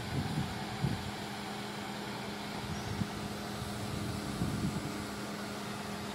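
Suzuki Jimny's engine running steadily at low revs as the 4x4 creeps over rocks under braking, with a few dull bumps.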